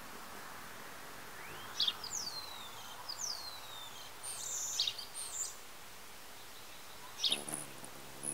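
Hummingbird calling at a feeder: sharp high chirps and several quick downward-sliding squeaks in a few bursts, the last chirp near the end over a short low buzz, against a steady faint hiss.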